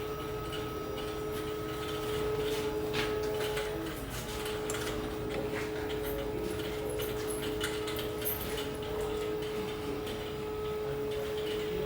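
Steady machinery hum, one even tone over a low rumble, with scattered faint clicks and taps.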